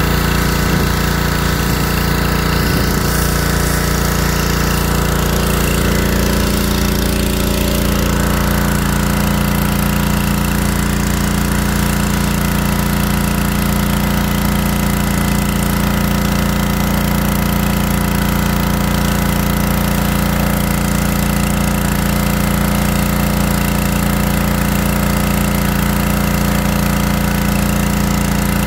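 Pressure washer's small engine running steadily at a constant pitch, with the hiss of its water jet spraying onto the car's body.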